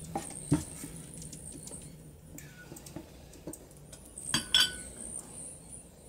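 Light clicks and taps of a plastic soda bottle being handled while a soldering iron melts a hole through it. A couple of sharp clinks about four and a half seconds in come from the hot soldering iron being set down on a ceramic plate.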